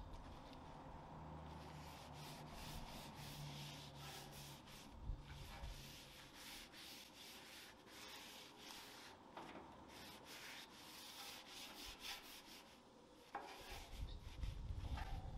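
Oil-soaked paper towel held in tongs, rubbed back and forth across a hot steel griddle top: a faint scratchy wiping in many quick, repeated strokes. A coat of cooking oil is being spread to season the griddle.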